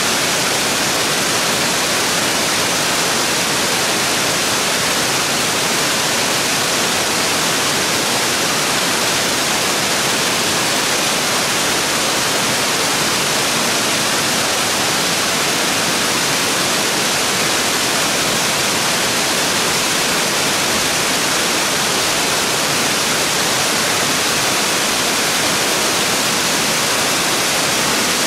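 Tall waterfall cascading down steep rock ledges: a loud, steady rush of falling water.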